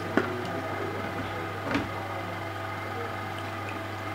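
Hot tub's circulation pump running with a steady hum while water swirls and drains into the filter well. Two short knocks, just after the start and near two seconds in, as the plastic protective grid is pressed down into place.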